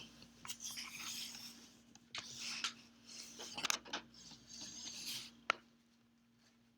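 Small geared DC motors of a hobby robot arm running in short bursts of grinding whir, one joint after another, with a sharp click near the end and a faint steady hum underneath.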